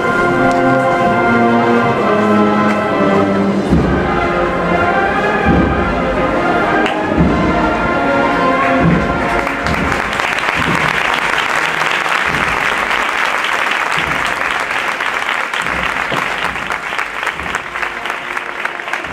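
A procession brass band plays a march with drum beats. The music ends about nine seconds in, and the crowd breaks into applause that carries on to the end.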